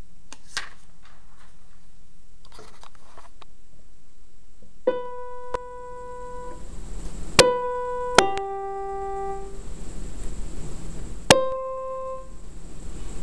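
Electronic keyboard playing Schindler elevator arrival chime imitations: a single bell-like note, then a falling two-note ding-dong, then another single note, each struck sharply and left to ring out. A few soft clicks and rustles come before the first note, with a low hum throughout.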